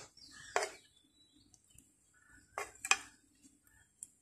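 A steel spoon knocking and scraping against a plastic food box as thick, set milk cream is spooned in and spread: a few sharp clicks, one about half a second in and two close together near the middle.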